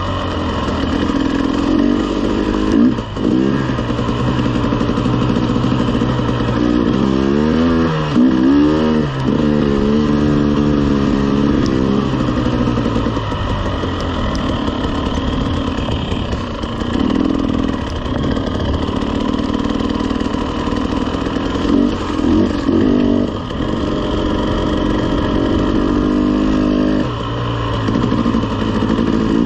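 KTM 300 two-stroke enduro bike engine running as the bike rides a dirt trail, its revs rising and falling with the throttle. There is a cluster of quick rev changes about a quarter of the way in and a few more near the end.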